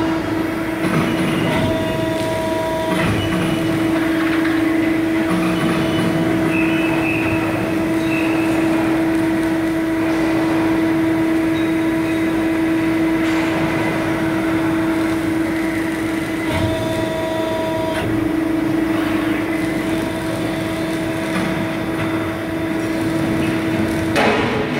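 Hydraulic CNC press brake running with a steady hum while its servo-driven backgauge repositions. A higher whine comes in briefly twice as the Z1/Z2 backgauge fingers travel along the rail.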